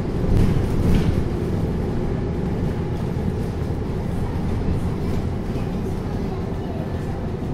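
Cabin noise of a MAN NL323F A22 diesel single-deck bus driving at steady speed: a steady low engine drone with road noise, and a couple of short knocks about half a second and one second in.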